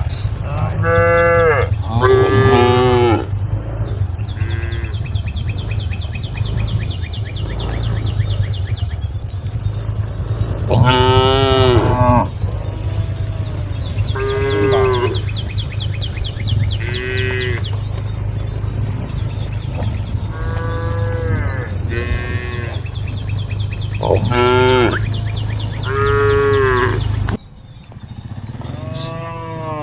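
Cows mooing, about a dozen long calls one after another, some rising and falling in pitch and some overlapping, over a steady low rumble that cuts off suddenly near the end.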